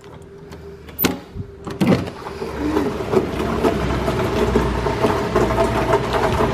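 Heavy rain falling: a dense patter of drops that swells up about two seconds in, after a couple of sharp clicks, and stays loud.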